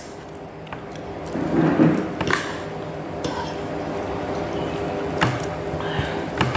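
Light clinks and taps of dishes and utensils at a meal table, about five scattered sharp clicks over a faint steady hum.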